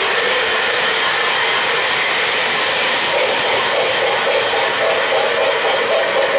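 O-gauge model trains running on three-rail track: a steady rumble and whir of metal wheels and electric motors as a model steam locomotive pulls freight cars past. A steadier hum grows stronger about halfway through.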